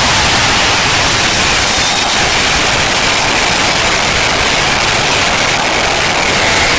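Football crowd roaring in celebration of an equalising goal, so loud and close that the phone's microphone overloads and the cheering blurs into a steady hiss-like roar.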